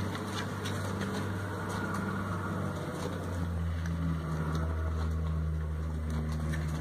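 A low, steady motor hum like an engine idling, with a fainter higher tone over it that strengthens about three seconds in.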